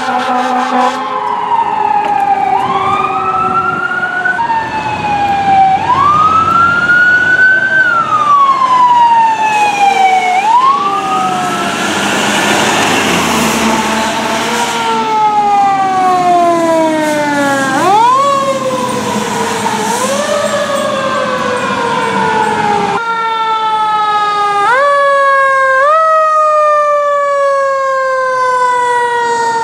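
Fire truck sirens wailing as the trucks respond, each wail rising quickly and then winding down slowly, over and over. A steady horn note ends about a second in.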